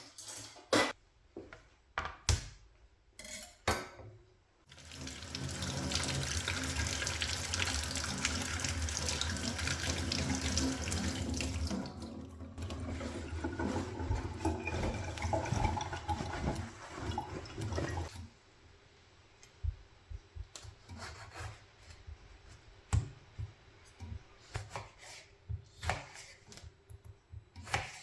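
Kitchen tap running into the sink for about thirteen seconds, turned on about five seconds in and off at about eighteen seconds. Light clicks and knocks of kitchenware being handled come before and after it.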